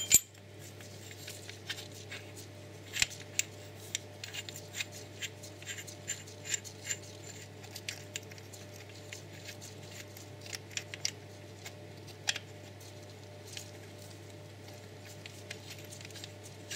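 Small metal clicks and clinks of a brake caliper rewind tool being fitted by hand to a rear brake caliper: the piston adapter and threaded shaft knocking against the caliper and piston as they are lined up and done up hand tight. The clicks come irregularly, the sharpest near the start and about three seconds in, over a steady low hum.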